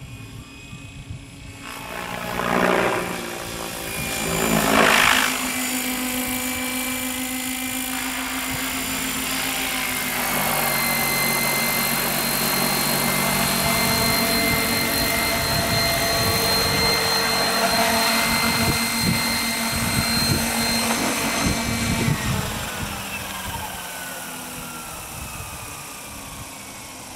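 Radio-controlled Hirobo Sceadu model helicopter in a Bell 222 scale fuselage, flying at high rotor speed: two loud swells as it passes, then a steady whine of rotor and drive. After it lands, about two-thirds of the way in, the rotor and drive wind down, the whine falling steadily in pitch.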